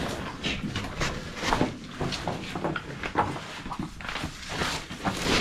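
Careful footsteps on loose rock rubble: irregular crunches and scrapes of stones shifting underfoot.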